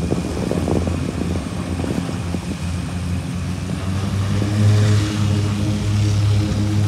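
Twin Otter floatplane's turboprop engines and propellers at takeoff power during its run across the water: a steady propeller drone with a low hum that grows stronger and richer in overtones about four and a half seconds in.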